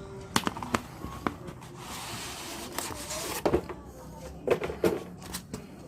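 Packaging of a boxed tablet being handled: scattered knocks and clicks as the box and its contents are moved, with a rustling slide lasting about a second just before the middle.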